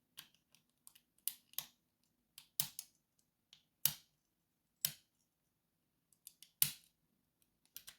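Lock pick and tension wrench working the pins of a pin-tumbler lock: a dozen or so irregular, sharp little clicks, some louder than others. These are pins being set and dropping, as the spool pins at the back of the lock keep falling.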